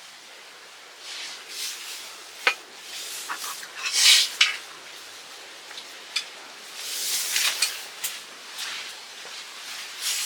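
Camp cooking and utensil handling: a few sharp clicks of utensils against cookware, with short bursts of hissing sizzle, the loudest about four seconds in and again past the middle.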